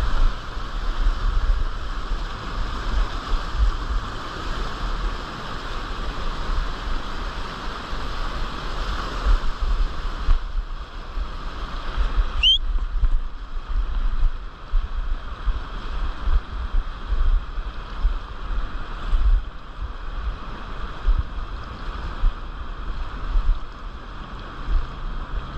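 River rapids rushing over rocks, with wind buffeting the microphone in irregular low thumps. A single short rising squeak comes about halfway through.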